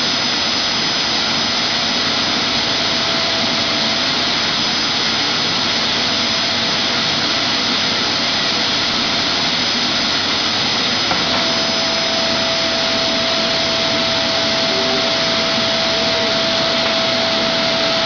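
Vacuum cleaner running steadily, with a thin whine that stops about four seconds in and comes back after a click about eleven seconds in.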